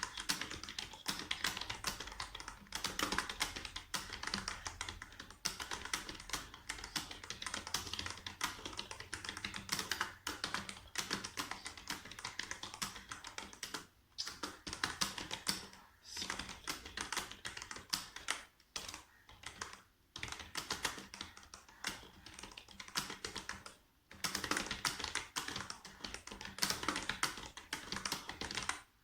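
Fast touch-typing on a computer keyboard: a rapid, continuous run of keystrokes, broken by a few short pauses.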